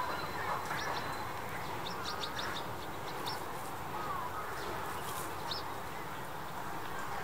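Small birds chirping in short high notes, with a quick run of chirps about two seconds in, over steady background noise; one brief lower call sounds near the middle.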